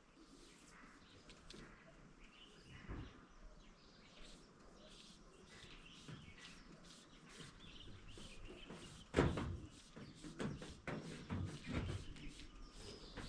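Faint birdsong, with scattered knocks and clatter from handling work; a cluster of sharp knocks starts about nine seconds in, the first the loudest.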